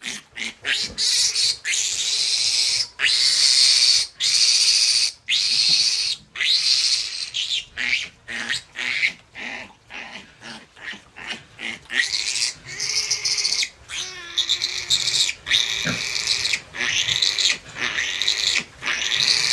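A young piglet squealing loud and shrill in distress as it is held and restrained in a person's hands. Long screams about a second each are broken by short pauses for breath, with shorter, quicker squeals around the middle.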